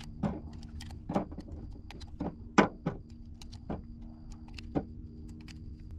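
Pistol cartridges being pressed by hand into a handgun magazine: about ten short, sharp clicks at irregular spacing, roughly one every half second, over a faint steady low hum.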